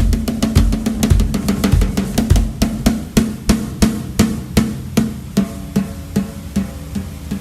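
Snare drum with a batter head fitted on its resonant (bottom) side, struck in an even beat with a sustained ring after each hit. In roughly the first two and a half seconds, deep bass-drum thumps come with the hits; after that it is steady snare strokes at about three a second.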